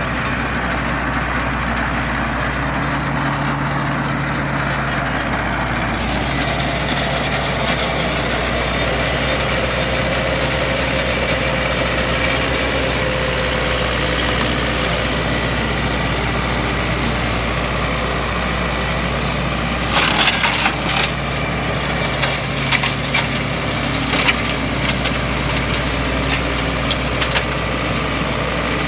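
Zetor 7245 tractor's four-cylinder diesel running steadily under load while its rear flail mulcher chops low grass with a constant rushing hiss. About twenty seconds in, and again in a scattered run over the next several seconds, the mulcher gives sharp cracking knocks.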